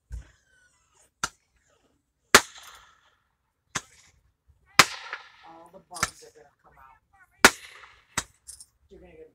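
Fireworks going off: about eight sharp bangs, roughly one a second, each followed by a brief echo.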